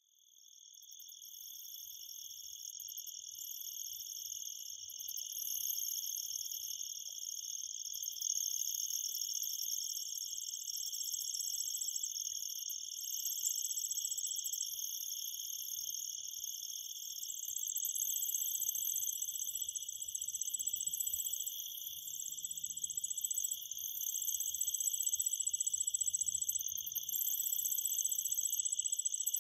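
Insects chirping in a continuous high-pitched trill, fading in over the first few seconds.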